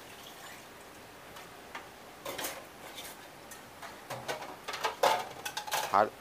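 Metal spoon clicking and knocking against an aluminium cooking pan: a few scattered clicks at first, then a quicker run of louder knocks in the last two seconds as stirring begins.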